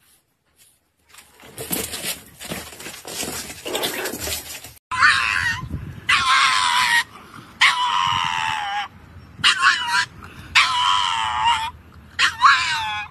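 Scuffling and yipping from pug puppies, then from about five seconds in a pug gives six drawn-out, wavering high-pitched howls, each about a second long.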